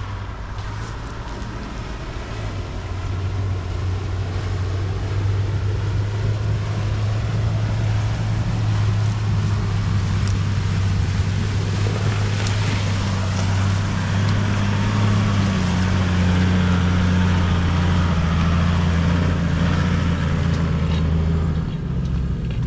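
A four-wheel drive's engine running steadily at low revs, getting louder as the vehicle wades through a river crossing and climbs out, with water splashing around the middle. The engine note steps up about two-thirds through and drops away near the end.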